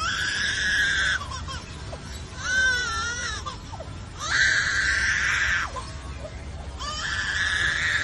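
Superb lyrebird mimicking a crying baby with loud wailing cries. Three long drawn-out cries of about a second each, with a shorter wavering cry between the first two.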